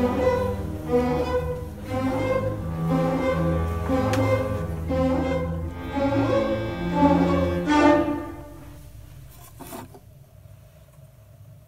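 Orchestral film-score music with bowed strings over low, held bass notes, swelling near the end and then fading out about eight seconds in.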